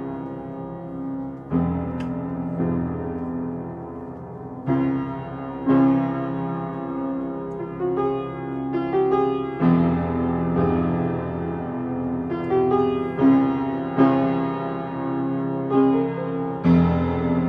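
Instrumental music: a piano or keyboard playing chords and melody notes, a new chord struck about every one to two seconds.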